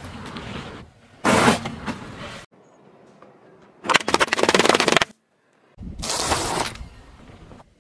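A car tyre crushing things on asphalt in quick cuts: a loud burst about a second in, then a row of plastic-sleeved jelly sticks popping one after another in a rapid crackle about four seconds in, then a corn cob crushed under the tyre.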